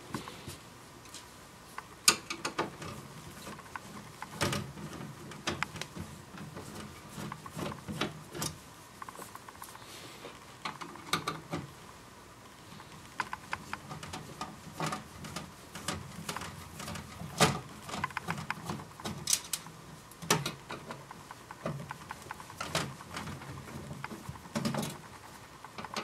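Irregular clicks, taps and scrapes of a screwdriver working the back-panel screws of a CD player, mixed with rustling and rubbing handling noise as a sleeve brushes over the camera and its microphone.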